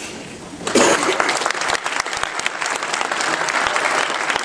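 Audience applauding: a dense clatter of many hands clapping that breaks out suddenly just under a second in, right after the oath of office is completed.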